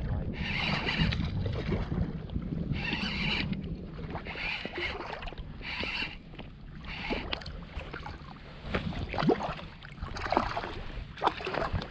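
Shallow bay water sloshing and lapping close to the microphone, surging every second or so over a low wind rumble, then giving way to small sharp splashes and drips.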